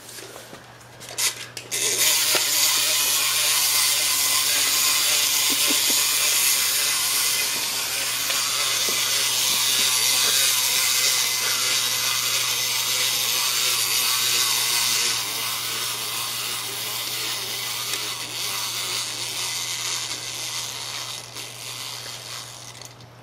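Treat-dispensing toy chicken's mechanism running on a wooden floor with a steady whir, starting about two seconds in, growing weaker over the last several seconds and stopping near the end.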